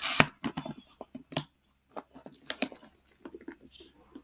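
Handling of a quilted faux-leather handbag: a run of clicks, taps and rustles as the flap and its turn-lock clasp are worked, with two sharp clicks, one right at the start and one about a second and a half in.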